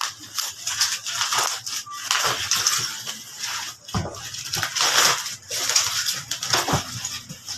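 Paper or plastic packaging crinkling and tearing in irregular bursts, as a wrapped gift is opened.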